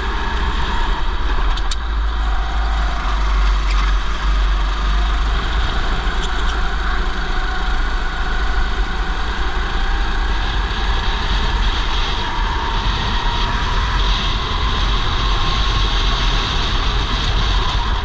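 Racing go-kart engine running under throttle, its pitch slowly rising and falling as the kart accelerates and brakes, with other karts running nearby. Heard from a helmet chin-mounted camera, with heavy wind rumble on the microphone.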